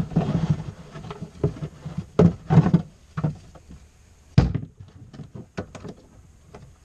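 Kemimoto plastic under-seat storage box lid being handled and lifted open: a run of hollow plastic knocks and thunks with rustling between them, the loudest thunk about four and a half seconds in, then a few lighter clicks.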